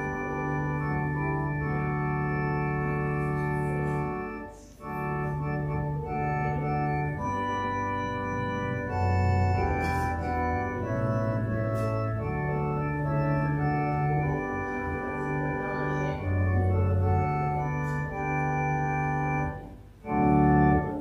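Organ playing slow, sustained chords over long-held bass notes, with a brief break about four and a half seconds in. The piece closes on a final chord near the end.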